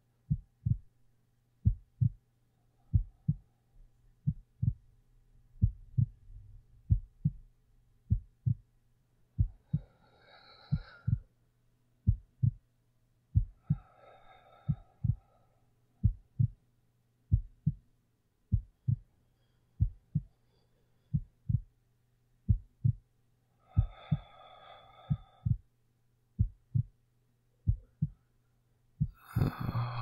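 Heartbeat beating in a steady lub-dub rhythm over a low steady hum, with soft slow breaths three times and a louder breath near the end.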